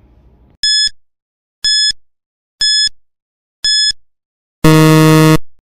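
Countdown timer sound effect: four short high-pitched beeps about a second apart, then a longer, lower buzzer tone about a second after the last beep, marking time up.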